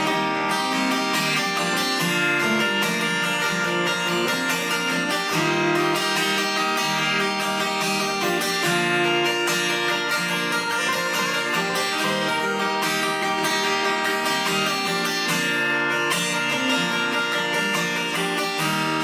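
Acoustic guitar strummed in a steady rhythm through an instrumental break between sung verses of a live country song.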